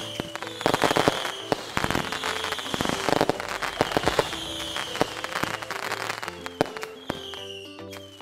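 Fireworks sound effects: whistles falling slightly in pitch, bangs and crackling, repeated about once a second, over background music with held notes.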